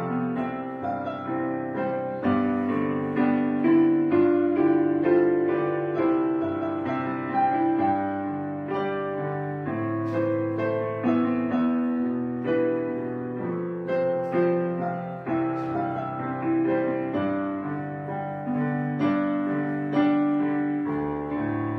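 Background piano music: notes struck one after another, each fading away, in an unhurried flowing melody over low bass notes.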